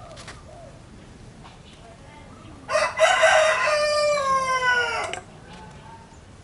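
A rooster crowing once: one drawn-out call of about two and a half seconds, starting a little under three seconds in and falling in pitch at the end.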